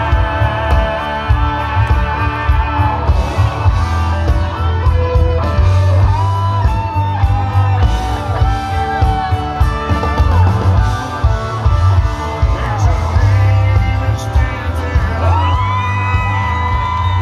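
Live country band playing through a concert PA: a male singer over amplified guitars and a steady, heavy drum beat, heard from the crowd.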